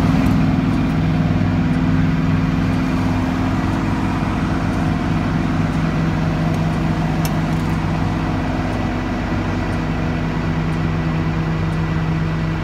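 Tow truck's engine idling steadily, a low even hum that holds throughout, with a faint click about seven seconds in.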